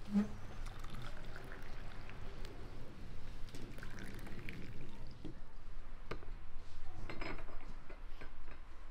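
Milk poured from a small glass jug into porcelain coffee cups, a soft pouring trickle, with a few light clinks near the end.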